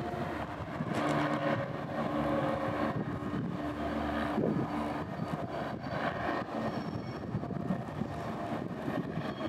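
Virginia & Truckee Railroad train running past at a distance: a steady low rumble with a droning engine note that holds for a few seconds.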